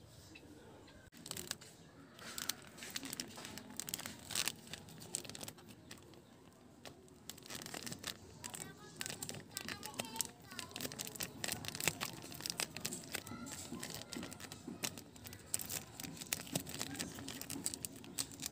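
Clear plastic wrapping crinkling and rustling as hands handle and pull at it around a statue, many quick irregular crackles starting about a second in and growing busier later on.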